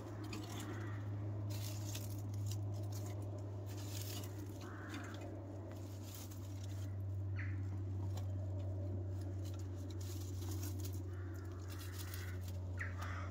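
A few short bird calls over a steady low hum, with scattered faint clicks.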